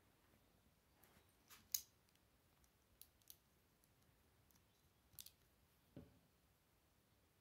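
Plastic Lego bricks clicking as pieces are pressed together and handled: about seven scattered small snaps, the sharpest nearly two seconds in.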